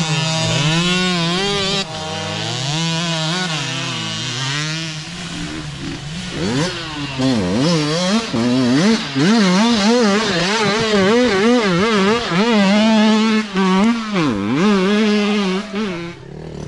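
Mini dirt bike engines revving up and down in quick, repeated throttle blips as the bikes ride a rough trail. The engine sound grows louder from about six seconds in, then drops away suddenly near the end.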